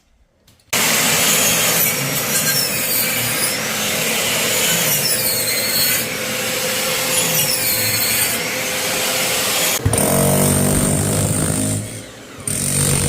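Power saw cutting through wooden floorboards, starting with a jolt about a second in. Near the end the cutting gives way to the motor's pitched hum, which drops off briefly and comes back.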